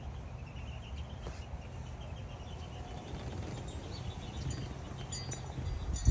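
Outdoor ambience with wind rumbling on the microphone and a faint, rapid run of high chirps, ending in a sudden thump.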